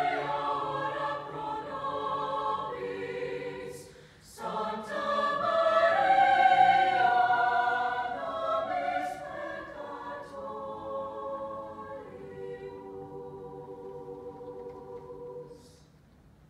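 Mixed choir singing sustained chords, breaking off briefly about four seconds in, then swelling again and gradually fading to a soft held chord that ends near the close.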